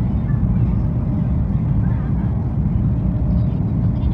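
High-speed train running at speed, heard from inside the carriage as a steady low rumble.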